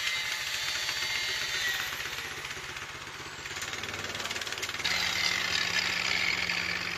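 A machine's motor running steadily with rhythmic ticking and a high whine. The whine winds down about 2 s in and picks up again about 5 s in.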